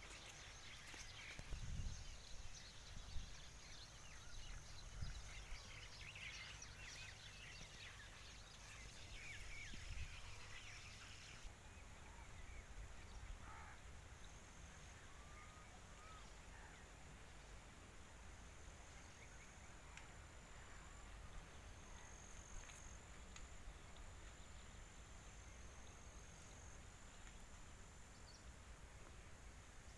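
Faint outdoor ambience: a low steady rumble with scattered small bird chirps and whistles, busier in the first ten seconds or so.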